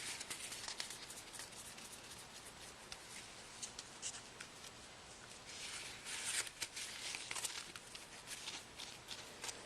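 Soft rubbing and scattered small clicks of a Galaxy S3 being wiped down and handled to clear debris before the new screen goes on.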